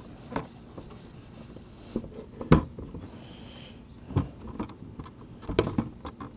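Rear seat cowl of a Suzuki M109R being pushed and wiggled onto the tail section: scattered clicks and knocks of the cowl against the bike, the loudest about two and a half seconds in, as it resists sliding into place.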